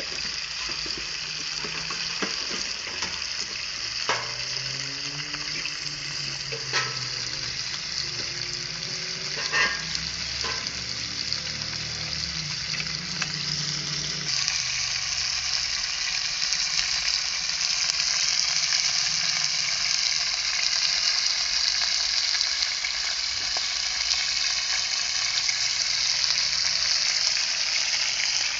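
Rooster pieces sizzling as they brown in hot oil in a pot over a wood fire, with a few sharp knocks in the first half. About halfway through the sizzle turns louder and hissier.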